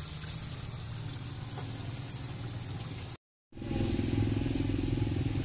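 Hot cooking oil sizzling steadily under a wire basket of freshly fried battered chicken. Just past three seconds the sound cuts out briefly, and then a low steady engine hum takes over.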